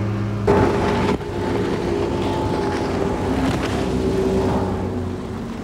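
Speedboat engine running steadily at speed while towing a water skier, with a louder rush of water noise about half a second in.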